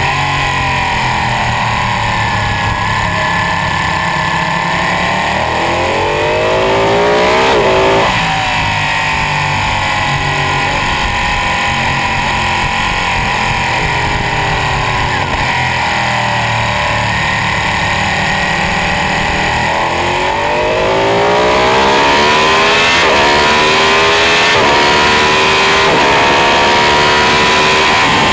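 Ducati 899 Panigale's V-twin engine under way at track speed, with wind rush over the fairing. The revs climb and drop sharply about eight seconds in. Over the last third the engine gets louder and pulls hard through several upshifts as the bike accelerates up to about 200 km/h in fifth gear.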